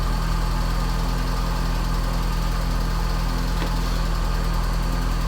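Lada Priora engine idling steadily just after a cold start, with only a faint ticking from the hydraulic valve lifters, which the owner believes had been clogged with coke and were eased by a diesel flush.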